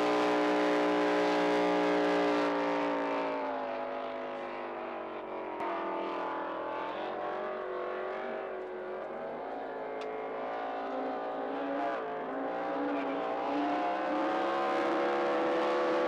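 Racing powerboat engines running at high revs: a steady drone that fades a few seconds in, wavers up and down in pitch through the middle as the boats work the course, and grows louder again near the end.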